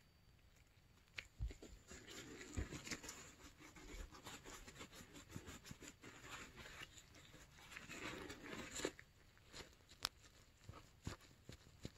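Faint handling noise of gloved hands working a sealed ball bearing and a paper shop towel: a crinkling, rustling scrub with many small clicks. A few sharper clicks come near the end, one standing out.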